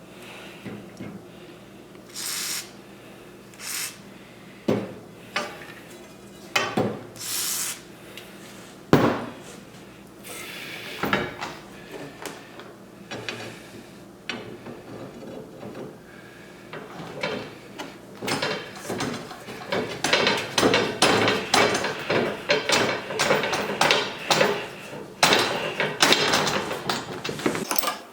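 Steel pipe and fittings being handled and fitted together: scattered metal knocks and clanks, then, about two-thirds of the way in, a louder, busier stretch of rapid rattling and scraping.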